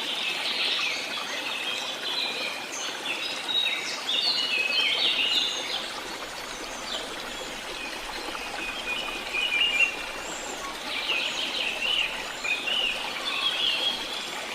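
Several birds chirping and trilling in bursts over a steady rush of running water.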